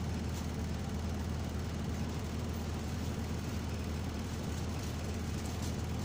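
Optare Solo SR bus's engine and drivetrain running steadily while under way, heard inside the passenger saloon as a constant low drone with road noise. Bus enthusiasts call this sound "hoovery" for its vacuum-cleaner-like whine.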